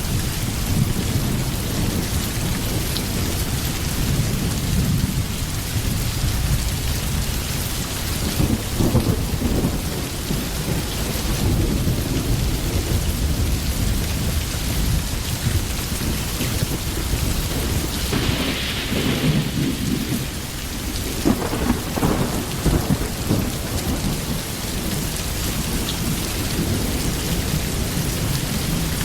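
Steady rain with low rumbles of thunder that rise and fall, swelling about a third of the way in and again, more strongly, about two-thirds of the way through.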